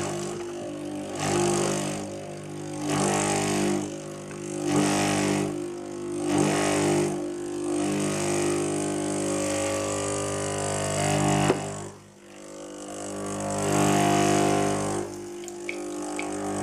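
Gaggia Brera espresso machine running its start-up cleaning rinse: the pump hums steadily while water is pushed through in repeated surges about every one and a half to two seconds. The sound drops away briefly about twelve seconds in, then builds again.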